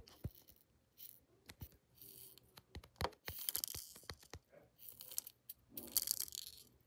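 Tiny plastic miniature candy beads poured from a small plastic cup, falling onto a miniature plate and into a plastic bowl as a faint scatter of small clicks and rattles. There are two denser pours, about three and a half seconds in and again about six seconds in.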